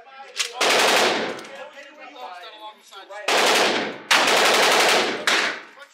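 Remington 870 pump-action shotgun fired four times, about half a second, three, four and five seconds in, with smaller clicks of the pump being racked between shots. Each blast has a long echoing tail in the enclosed indoor range.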